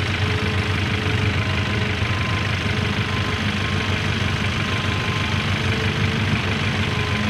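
An engine running steadily at an even speed, with no revving.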